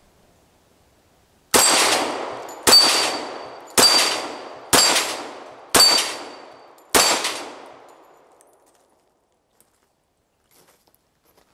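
Six .45 ACP pistol shots from a Ruger American Pistol, about a second apart, each hit ringing off a steel knockdown plate with a high metallic ring as the plates fall one by one.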